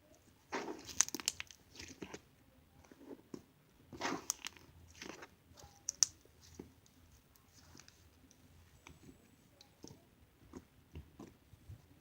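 Slime being squeezed and worked by hand, giving wet crackling and popping in irregular bursts, loudest about a second in and again around four seconds in, then quieter scattered pops.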